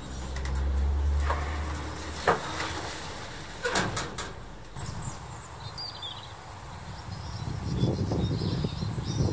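Knocks and rattles from a metal up-and-over garage door as a person slumps back against it and slides to the floor: one sharp knock, then a short cluster of them. Near the end comes a low, uneven wind rumble on the microphone outdoors.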